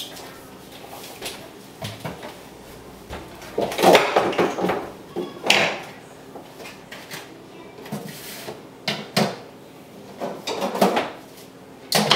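Irregular knocks, bumps and rustling as a person climbs onto a kitchen counter and handles things up high, with the loudest clatters about four seconds in and again near the end.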